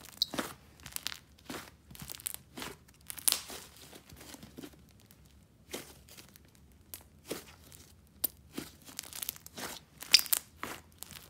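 Inflated clay slime squeezed and stretched by hand, giving irregular crackles and small bubble pops as the trapped air is pressed out, with a quieter stretch in the middle.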